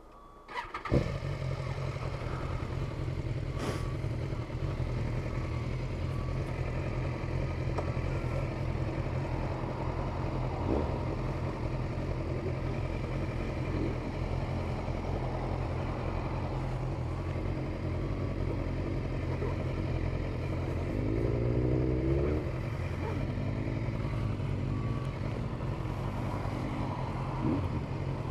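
Motorcycle engine starting about a second in, then running steadily at low revs, with a brief rise and fall in revs a little over twenty seconds in.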